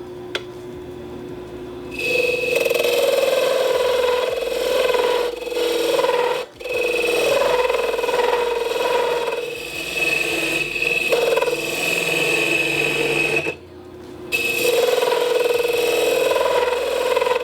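Wood lathe running, then a turning tool cutting the spinning oak in long noisy passes with a steady whine, broken by a brief pause about six and a half seconds in and a longer one near fourteen seconds.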